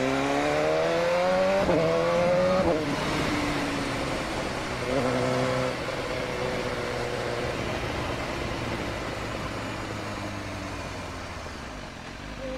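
BMW S1000RR inline-four engine pulling hard, its note climbing in pitch with a brief dip about a second and a half in, as on an upshift. It backs off the throttle near three seconds and the note falls away. A short rise comes around five seconds, then the bike cruises on a lower, fading note with wind rush.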